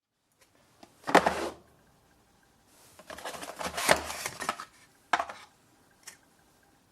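A few short bursts of clattering and clicking from hard objects being handled, the longest lasting about two seconds, ending with a sharp click.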